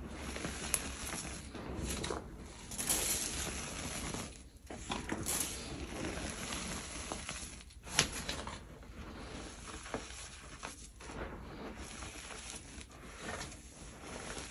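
Hands squeezing and crumbling handfuls of powdery gym chalk. The loose powder crunches and hisses as it falls back onto the pile. Scattered sharper crunches come through, the loudest about eight seconds in.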